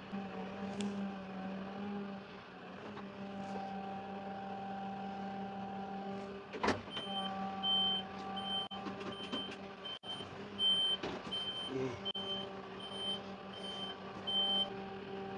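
LS compact tractor's diesel engine running steadily while it manoeuvres. About two-thirds of the way in there is a sharp clank, then a backup alarm beeps about twice a second for several seconds as the tractor reverses.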